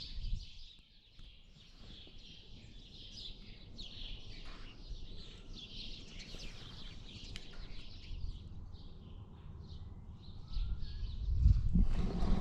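Small birds chirping and twittering continually, many short high chirps overlapping. A low rumble swells up under them about ten seconds in.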